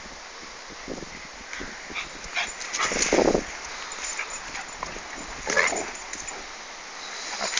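A dog yipping and whining in short, irregular bursts, loudest about three seconds in and again a couple of seconds later.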